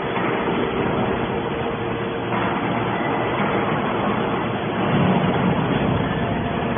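Hydraulic scrap-metal baler running, with the steady noise of its electric motor and hydraulic pump and a faint steady whine underneath.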